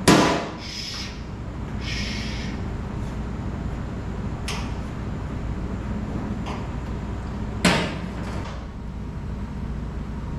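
Hard clacks and knocks of faucet parts being handled and worked loose during removal: a sharp loud knock at the start, a lighter one about four and a half seconds in, and another loud knock about seven and a half seconds in, over a steady low hum.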